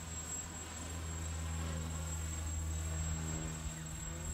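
3D-printed drone's motors and propellers buzzing steadily as it holds position overhead in loiter mode, with a thin steady high tone above the buzz.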